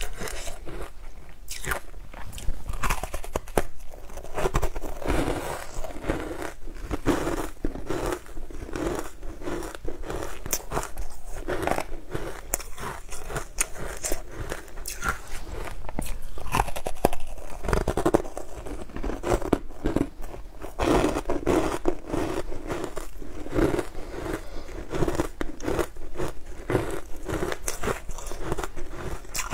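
Close-miked crunching and biting of a frozen treat coated in green powder, with dense, irregular crunches and crackles as the treat is pressed into the powder and bitten and chewed.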